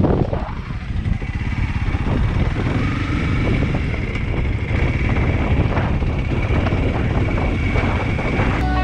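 Honda CRF 300L's single-cylinder engine running as the motorcycle rides along.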